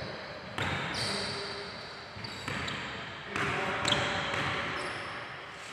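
Basketball hitting the hardwood court of a large gym, about four sharp knocks that echo and fade.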